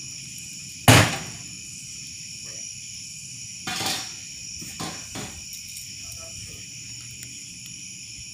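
Steady high-pitched chirring of crickets. A loud sharp knock about a second in, a second knock near four seconds, and two lighter knocks soon after.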